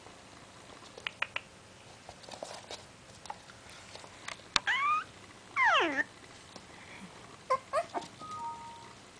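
Five-week-old Maltese puppy yawning out loud. About four and a half seconds in there is a short rising squeak, then a longer whine that falls steeply in pitch. A few short squeaks follow near the end.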